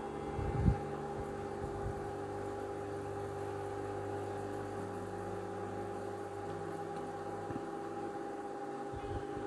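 A steady machine hum with a few fixed tones, and a single knock about half a second in.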